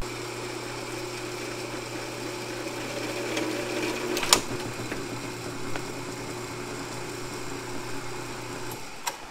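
Drill press motor running steadily while its twist bit cuts through a small piece of metal held in locking pliers, with a sharp click about four seconds in. The motor hum stops near the end.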